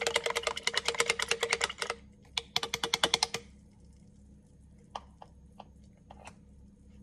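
A straw stirring a drink in a glass bottle, clicking rapidly against the glass for about two seconds, then a second shorter run of clicks about three seconds in. A few faint taps follow.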